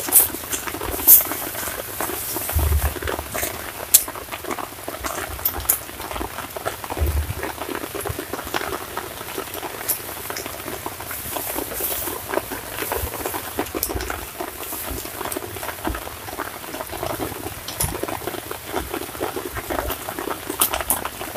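Steady, dense pattering of water falling onto a pond surface, with a few sharper clicks in the first few seconds.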